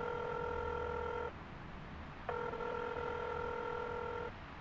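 Telephone ringback tone of an outgoing call ringing out unanswered: two long steady electronic tones of about two seconds each, a second's gap between them, the first stopping about a second in.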